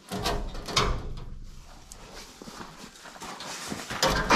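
Knocks and thuds of firewood logs being handled and set onto a platform trailer, with a sharp knock about a second in and a louder burst near the end.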